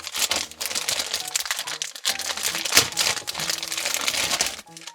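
Toy packaging crinkling and crackling in hands as a figure is unwrapped, stopping just before the end, over light background music.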